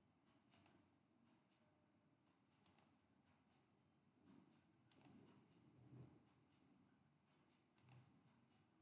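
Faint computer mouse clicks, four times, each a quick pair of clicks, over a soft low background hum.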